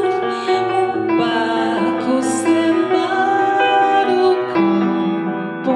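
Slow, gentle music with long held notes, carried by a female voice and keyboard.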